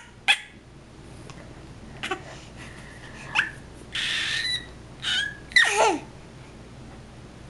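Baby laughing and squealing in short separate bursts: a breathy squeal about four seconds in and a longer squeal falling in pitch near six seconds.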